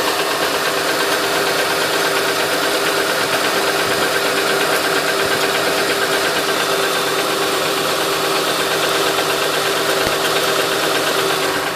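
2008 Honda Ridgeline's 3.5-litre V6 running steadily with a fast, even ticking over the engine sound.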